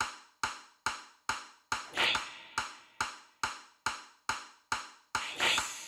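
A steady beat of sharp clicks, a little over two a second, each ringing out briefly. A louder rush of noise swells up about two seconds in and again near the end.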